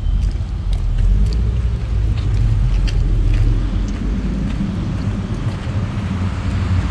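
Loud, uneven low rumble with faint footsteps on wet paving.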